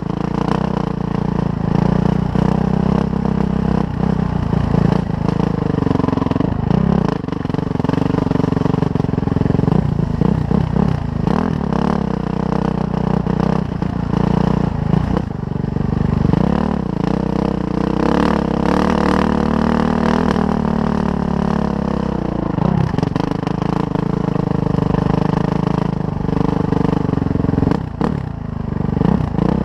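Suzuki RM-Z450 dirt bike's single-cylinder four-stroke engine running under load while being ridden, its pitch rising and falling with the throttle, with some clattering knocks from the bike.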